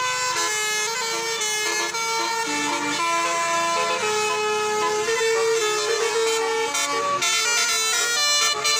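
A bus's basuri-type telolet horn playing a tune: several held tones sound together and step to new pitches every half second or so.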